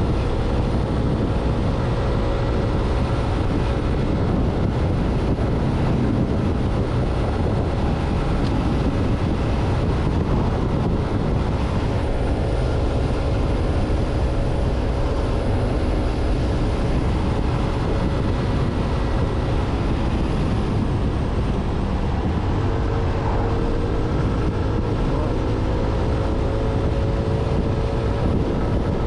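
Royal Alloy GT150 scooter cruising at a steady speed: an even engine drone under a dense low rush of wind and road noise, with no change in pace.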